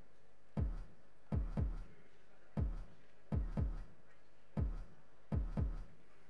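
Software-synthesized electronic drums playing a looped sequence: one hit, then two quick hits, repeating about every two seconds. Each hit is a deep thud that drops in pitch.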